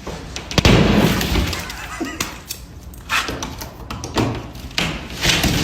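A sudden loud crash about half a second in, followed by about a second of noisy clatter, with further shorter clattering surges later on.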